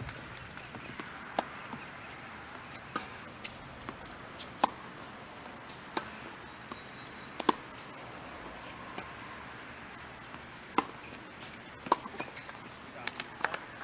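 Tennis ball being struck in a rally: a string of sharp pocks about every second and a half, with a quicker cluster of small taps near the end.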